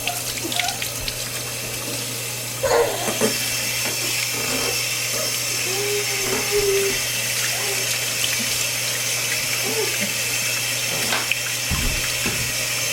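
Tap water running steadily into a sink while a puppy is washed under it.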